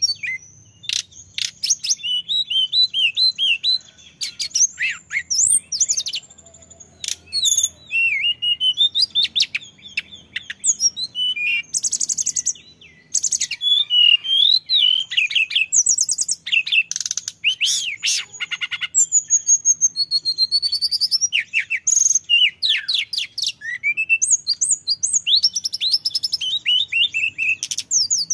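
Male hill blue flycatcher singing loudly and almost without pause: a long, varied run of quick slurred whistled phrases, broken now and then by fast rattling trills. This is the bird in full, continuous song.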